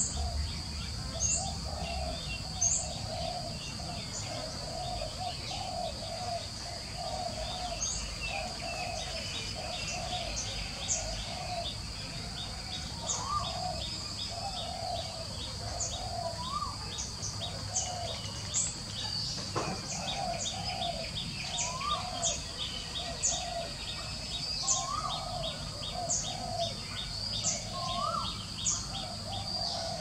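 Several birds calling: a lower call repeated about once a second, sharp high chirps, and now and then a short rising whistle, over a steady high-pitched tone.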